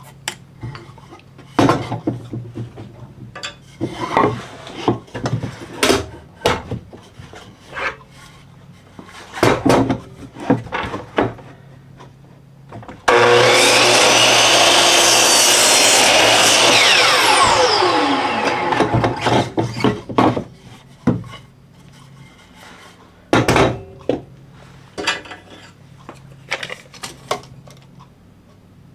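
Scattered knocks and clatter of 2x4 boards being handled. About 13 s in, an electric miter saw starts abruptly and cuts through a 2x4 for about four seconds, then its blade winds down with a falling whine. More knocks of boards being handled follow.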